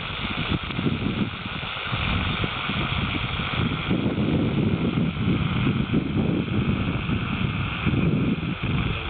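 Strong wind buffeting the microphone in uneven gusts, over a steady hiss.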